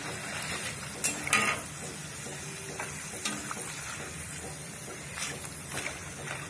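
Banana slices sizzling steadily as they deep-fry in hot oil in a kadai, with a few short scrapes and clinks of a metal mesh strainer and ladle against the pan as the chips are lifted out: about a second in and twice more past the five-second mark.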